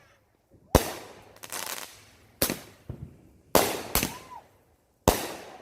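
A 13-shot consumer firework cake firing: four sharp, loud bangs about a second or so apart, each dying away with a short tail, and a burst of crackling after the first.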